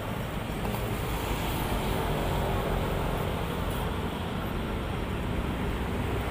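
Steady road traffic noise: a continuous rush of passing vehicles.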